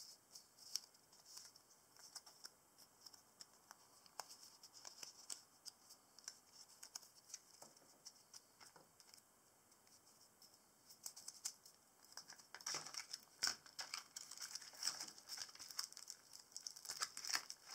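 Dry birch bark pieces crackling and scratching as they are handled: a scatter of small clicks and rustles, busier and louder in the last few seconds.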